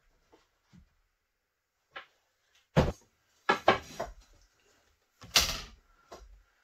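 Brad nailer firing nails into wooden window casing: two loud sharp shots about two and a half seconds apart, with several smaller knocks around them.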